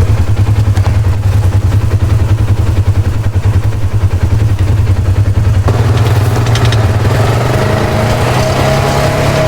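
Polaris RZR 570 side-by-side's single-cylinder engine running as the vehicle drives along a dirt track, with a low pulsing note. A little over halfway in the sound gets fuller and noisier, and a steady higher whine joins near the end.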